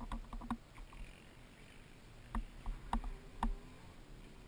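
Several sharp knocks and clicks over faint background noise, the loudest three about two and a half, three and three and a half seconds in.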